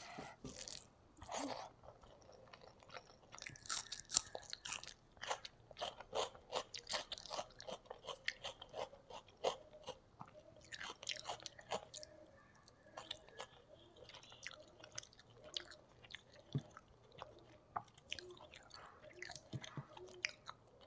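Close-up eating sounds of rice and fish curry: chewing with wet mouth smacks and many irregular short clicks, along with fingers squishing rice and curry on a foil-lined tray.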